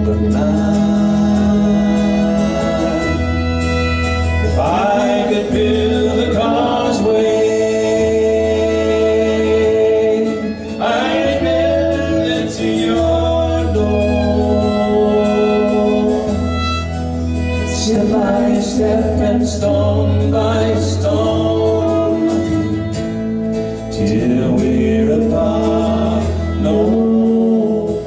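Live folk song: a fiddle playing melody over a steady low accompaniment, with singing.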